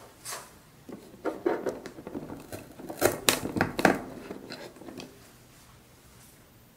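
A wooden skewer being pushed into a cardboard box: a run of short scraping, crunching clicks for about four seconds, thickest and loudest a little past the middle, then stopping.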